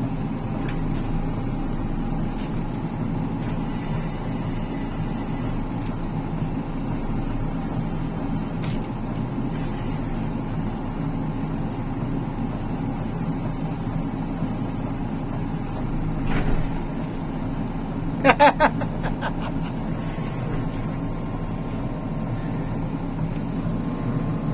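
JCB 3CX backhoe loader's diesel engine running steadily. About three-quarters of the way through come three short, loud pitched blasts close together.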